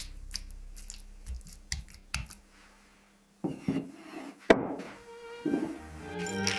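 Scattered light knocks and rubbing of objects being handled, with one sharp knock past the middle; music begins near the end.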